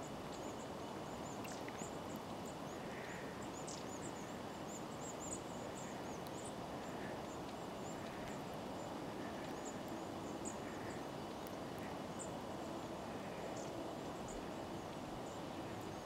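Small songbirds calling in winter: many short, high-pitched chirps scattered through, with softer, lower call notes every second or two, over a steady background hiss.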